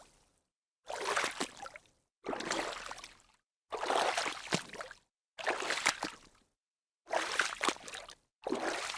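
Small water splashes made by a hand slapping and stirring water, in a series of separate short takes, each about a second long with a few quick splashes, cut apart by brief stretches of silence.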